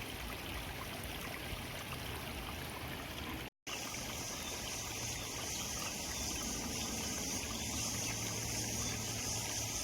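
Steady trickling, flowing water of a small stream running in from rice fields. About three and a half seconds in the sound drops out for a moment, and after that a steady high hiss sits over the water.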